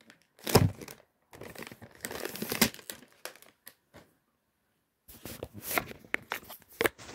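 Cellophane wrap being torn and pulled off a perfume carton, in several rustling bursts with a silent second or so past the middle.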